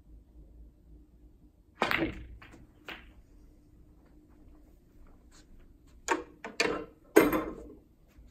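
Snooker balls: a sharp cue strike and ball-on-ball click about two seconds in, then two lighter knocks. Near the end come three more sharp ball knocks close together, the last the loudest.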